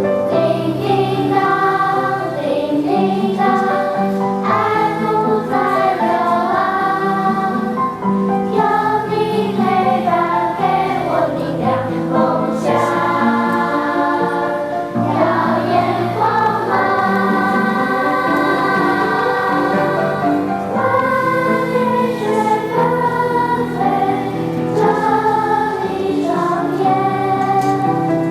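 School choir singing, with long held notes that move from pitch to pitch.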